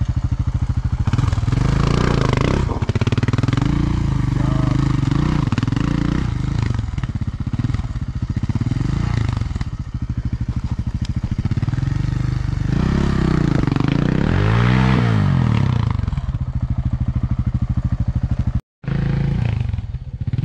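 KTM 1090 Adventure's V-twin engine running at low speed over rocky ground, its revs rising and falling again and again as the throttle is worked. The sound cuts out for a moment near the end.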